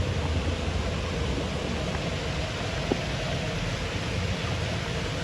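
Kurşunlu waterfall rushing: a steady, even noise of falling water, with one brief click about three seconds in.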